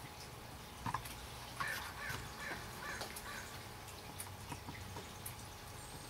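American crow cawing: a quick run of about half a dozen harsh caws between about one and a half and three and a half seconds in, after a single louder call about a second in.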